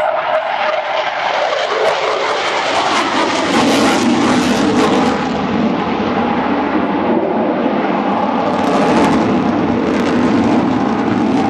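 Eurofighter Typhoon's twin turbofan jet engines at power: a loud, continuous rushing jet noise that swells about a third of the way in and again later.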